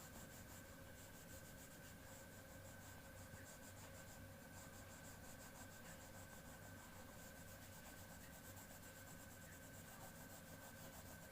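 Faint, rapid scratching strokes of colouring on a paper worksheet, over a low steady background hum.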